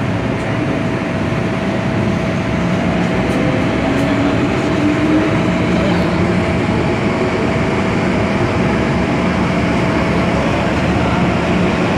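MTR M-Train electric multiple unit heard from inside the car as it runs along a station platform: steady rumble and wheel noise, with a faint motor whine rising slowly in pitch as the train picks up speed.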